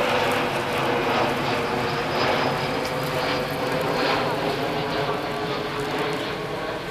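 Narrow-gauge steam train's passenger carriages rolling past on the rails, a steady rumble that slowly fades as the train moves away.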